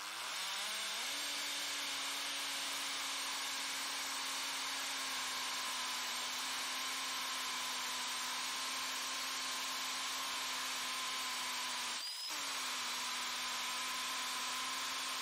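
Milwaukee 18-volt half-inch cordless hammer drill boring a hole through concrete: a steady motor hum that spins up over about the first second, breaks off briefly about twelve seconds in, and picks straight back up.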